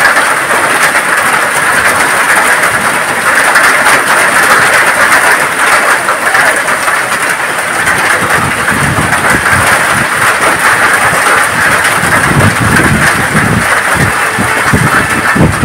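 Heavy rain mixed with hail pouring down, a loud steady hiss peppered with fine ticks of stones striking. From about eight seconds in, irregular low rumbling gusts join it.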